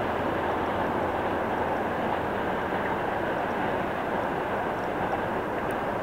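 Freight train of gondola cars rolling away along the track, a steady noise of wheels running on the rails.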